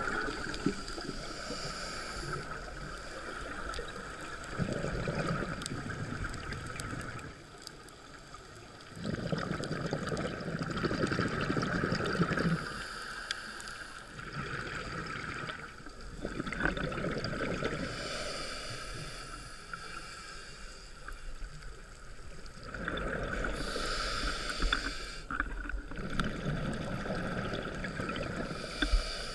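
Scuba diver breathing through a regulator, heard underwater: rumbling gushes of exhaled bubbles lasting two to three seconds, returning about every six seconds, with hissing between them.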